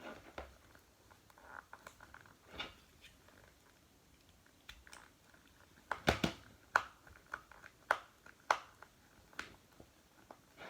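Scattered plastic clicks and knocks as batteries are fitted into a plush toy's battery box. The loudest knock comes about six seconds in, followed by single clicks about a second apart.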